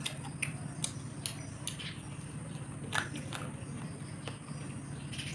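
A person chewing grilled barbecue chicken close to the microphone: irregular wet mouth clicks and smacks, over a steady low hum.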